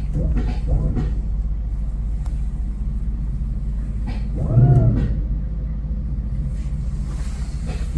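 Houseboat's engine running slowly with a steady low rumble, heard from inside the wheelhouse while the boat creeps forward. About halfway through, a brief louder pitched sound rises and falls over it.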